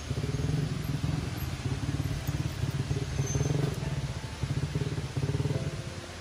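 A motor vehicle engine running with a fast, rough pulse, swelling and easing in spells of about a second with short dips between. It drops away shortly before the end.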